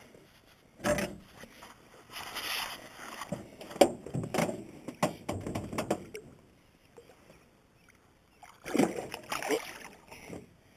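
A few sharp knocks and some rustling as a largemouth bass is handled in a small boat, then a splash about nine seconds in as the fish is let go back into the water.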